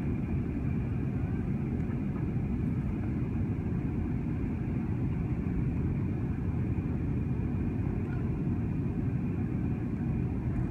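Steady low rumble inside a jet airliner's cabin in flight, the drone of engine and airflow noise.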